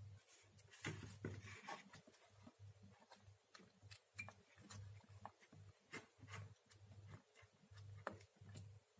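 Near silence: scattered faint clicks and a low hum that comes and goes.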